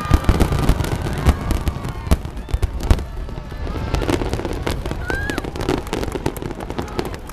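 Fireworks bursting: a rapid crackle of many sharp bangs with deeper booms, dense in the first few seconds and thinning out after about three seconds.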